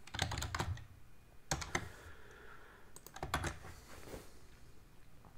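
Computer keyboard typing in three short bursts of keystrokes, about a second and a half apart.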